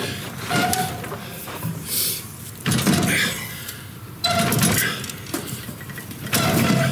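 Binding mechanism of a Lanz grain binder turned slowly by hand crank: about five heavy metal clanks and rattles, one every second or two, as the needle, knotter and ejector arms work through a tying cycle.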